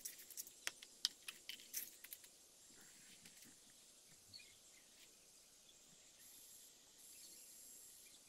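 Loose LEGO Technic plastic parts clicking against each other as a hand rummages through a pile of them, a quick run of light clicks over about the first two seconds.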